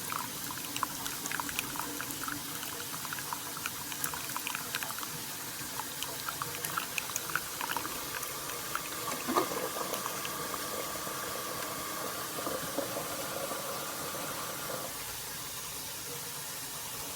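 Keurig K-Slim single-serve coffee maker brewing: hot liquid bubbling and crackling, with a steady hum between about eight and fifteen seconds in.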